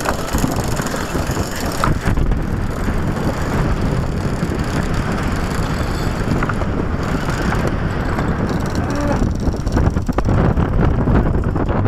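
Wind buffeting the microphone in a steady, heavy low rumble, over the rush of open sea around a sailing yacht.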